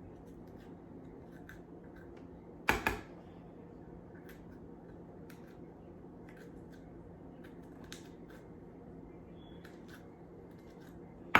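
Knife working through jalapeño peppers to clean out the seeds: scattered small clicks and scrapes, with two sharp knocks, one about three seconds in and one near the end.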